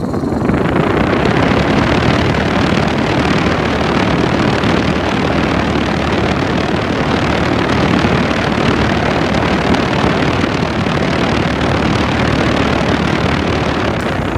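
Outdoor unit of a 2015 Bryant heat pump starting up: the condenser fan spins up within about the first second, and a loud, steady rush of moving air follows, heard from a microphone resting on the fan blade.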